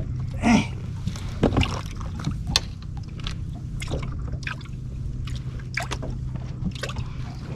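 Small waves lapping and slapping against a fishing boat's hull, with scattered light knocks and a steady low hum underneath.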